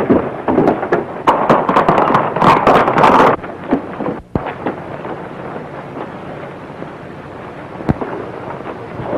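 Crackling, hissing noise full of sharp clicks, loud and dense for about the first three seconds, then a steadier, quieter hiss after a brief break around four seconds in.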